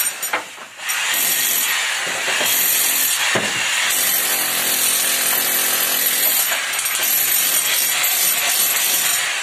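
Handheld electric power tool cutting into a brick wall, running loud and almost continuously. It drops off briefly in the first second, then bites in again.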